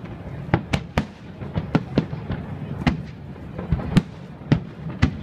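Aerial fireworks display with a dozen or so sharp bangs from bursting shells in quick, irregular succession, about two a second, over a steady low rumble.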